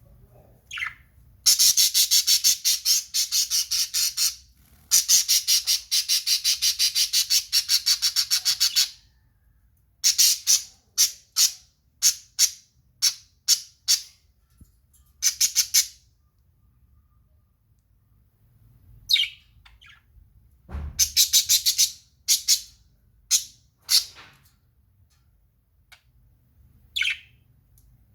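Budgerigar calls: two long runs of rapid harsh squawks, about five a second, then scattered single chirps and squawks with pauses between, and one more short rapid run later on.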